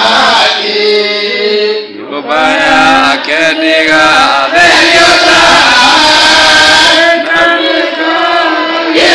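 A group of voices singing a chant-like church song together, with a short break about two seconds in.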